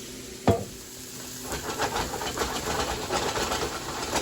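A single knock against the pan about half a second in, then butter-and-garlic scampi sauce sizzling and crackling in a hot pan as food is added to it.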